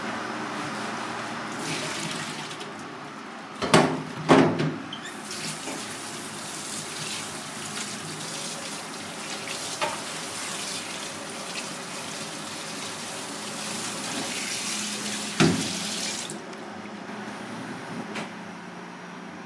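Kitchen tap running into a stainless steel sink as fish pieces are rinsed in a plastic colander. The water runs steadily for about eleven seconds. A couple of loud knocks come just before it starts and another just before it stops.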